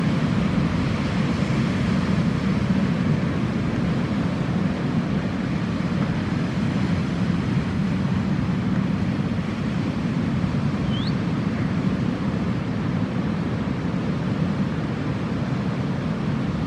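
Jet ski running steadily on the sea, a constant engine and rushing water noise with no change in speed.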